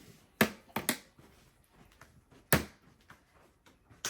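A hammer striking a block of ice, chipping away to crack it open: three sharp knocks close together in the first second, another about two and a half seconds in, and one more at the end.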